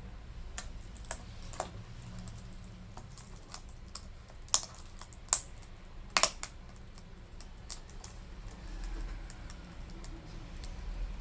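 Keys of a Lenovo Ideapad S145 laptop keyboard clicking as they are pressed and worked, scattered irregular clicks with a few sharper snaps around the middle. Some keys on this keyboard stick, from suspected liquid damage.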